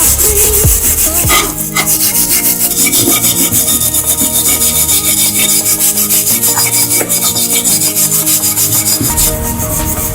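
Rapid, even abrasive rubbing strokes, like sanding or filing, on an old kettle under restoration, with steady background music beneath.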